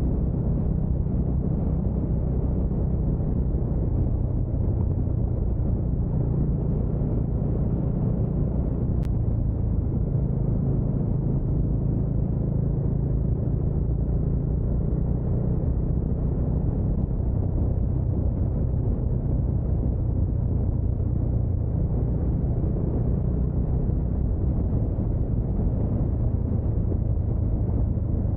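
Bajaj Dominar 400's single-cylinder engine running steadily as the motorcycle cruises, a constant low drone with road and wind rumble.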